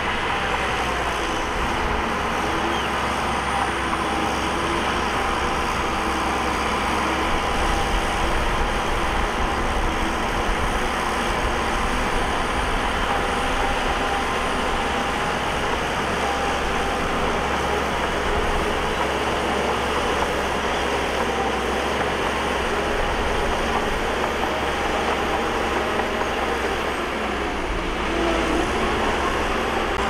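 Diesel engine of heavy earthmoving machinery running steadily under work, a constant drone with a faint high whine above it.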